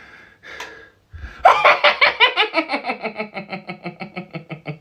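A person's long, rapid laugh: after a couple of breaths, a run of short staccato 'ha' pulses starts about a second and a half in, about six a second, loud at first, then gradually slowing and fading.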